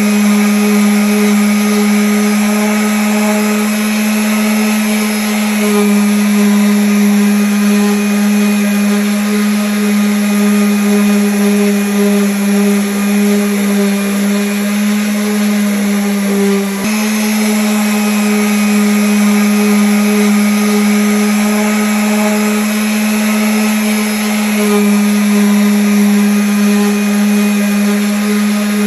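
Electric sander running steadily against wood: a loud, even hum with a strong low tone and a rasping hiss above it. A little past halfway it falters for a moment, then runs on.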